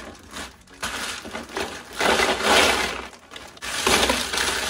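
Loose empty plastic lip balm tubes poured from a plastic bag into a plastic bin, clattering and rattling against each other, loudest in two spells about two seconds in and near the end.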